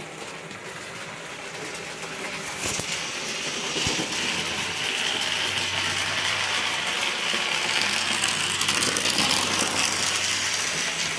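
Hornby OO gauge BR Class 7MT model steam locomotive running along the track, its tender-mounted electric motor whirring and getting louder from about four seconds in. Two sharp knocks come a few seconds in.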